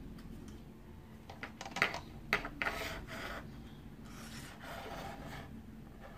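Soldering iron scraping and rubbing against lumps of rosin flux in a metal tin, with a quick run of sharp clicks and scrapes in the middle, then a softer, longer scrape near the end.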